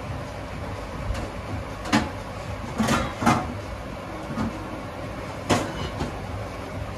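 Steady rumble of a stove on high heat under a pot of boiling curry, with several sharp clanks of metal utensils against the pot in the middle.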